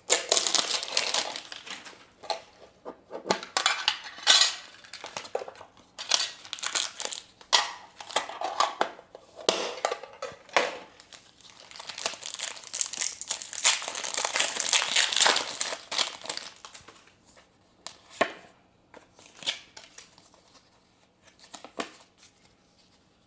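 Foil wrapper of a Pokémon card booster pack crinkling and tearing as it is opened, in repeated rustling bursts. After about sixteen seconds it thins to a few light rustles and clicks.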